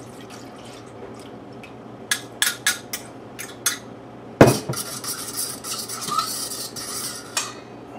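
A metal utensil clinking a few times against a stainless steel pot, then a sharp knock about four seconds in, followed by about three seconds of steady stirring of egg and milk in the pot.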